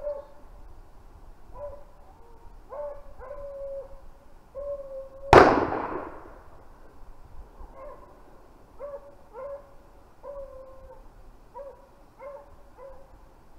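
Beagles baying in short, repeated pitched bays while running a rabbit. About five seconds in comes a single loud gunshot with a brief echoing tail, and the baying carries on afterwards.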